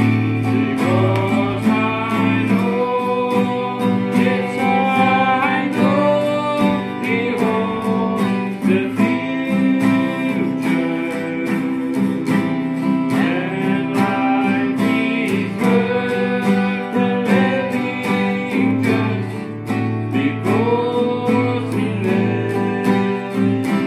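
Two acoustic guitars strummed in a steady rhythm, playing a hymn.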